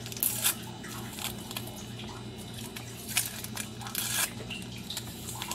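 A paper Splenda sweetener packet being torn open and crinkled between the fingers: a string of small, sharp rips and crackles, over a steady low hum.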